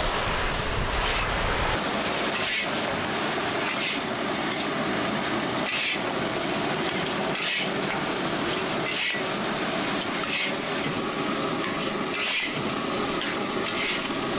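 Fried rice being stir-fried in a wok: a steady sizzle, with a metal spatula scraping and knocking against the pan about every second and a half.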